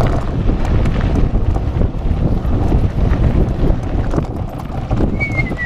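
A mountain bike riding fast over a gravel and dirt track, filmed from the bike: wind buffeting the microphone over the crunch and rattle of tyres and frame on the rough ground. Near the end comes a short, falling squeal.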